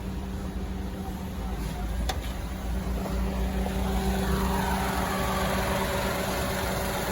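Toyota Passo's engine idling steadily with the A/C running, a low hum under a rushing noise that grows louder about halfway through.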